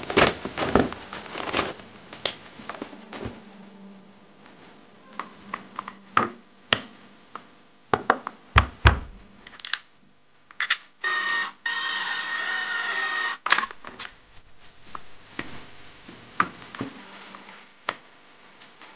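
Clicks, taps and knocks of small plastic and metal RC truck parts being handled and fitted together during hand assembly. About eleven seconds in, a high-pitched whir lasts two to three seconds.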